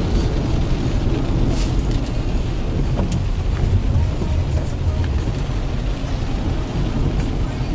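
Steady road and engine rumble heard inside the cabin of a 2006 Honda Accord automatic under way, with tyre roar and wind noise.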